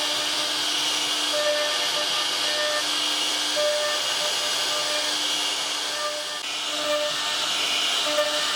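Steady machine noise with a strong hiss, over which a humming tone starts and stops every second or so.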